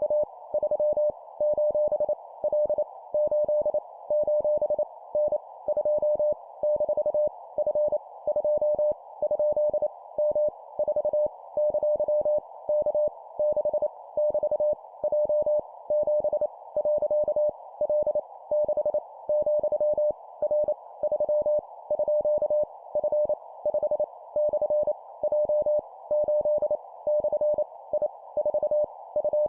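Morse code (CW) practice tone keyed at 25 words per minute: a single steady mid-pitched tone switched rapidly on and off in dots and dashes, sending random letters, numbers and punctuation.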